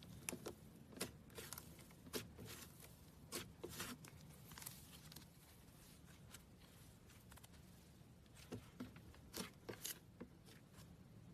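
Faint, scattered crackling and crunching from a soft craft material being squeezed or crushed by hand, in small clusters of clicks with quiet gaps between them.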